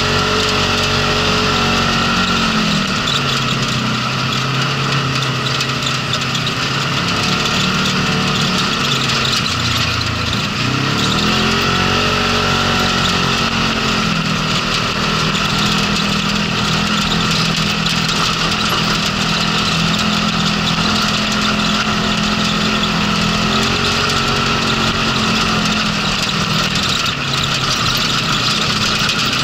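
Polaris RZR side-by-side's engine running under way on a rough dirt track. The engine note falls off about three seconds in, drops again around ten seconds, climbs back a second later, and eases off again near the end, with a steady hiss of tyre and wind noise underneath.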